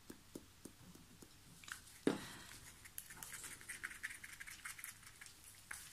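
Faint stirring of pigment powder into epoxy resin in a small cup. Soft regular taps give way to a single sharp knock about two seconds in, then quick, light scraping ticks.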